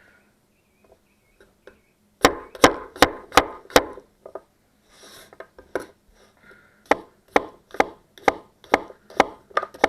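A 240 mm forged Damascus chef knife (gyuto) chopping through food onto a cutting board: a quick run of five sharp knocks, a pause with softer slicing sounds, then a steady run of about two knocks a second.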